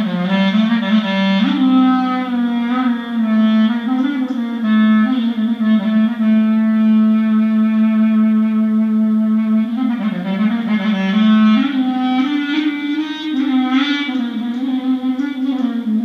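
Solo clarinet playing a taksim, an unmetered Turkish improvisation: quick ornamented runs and bends, with one long held note in the middle.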